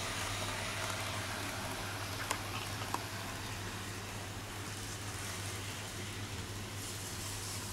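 A steady low hum under an even hiss of room noise, with two light clicks a little over two and three seconds in.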